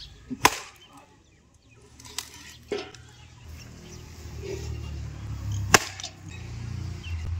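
Steel axe chopping into an upright wooden log to split it: separate sharp blows, the loudest about half a second in and another just before six seconds, with lighter knocks between.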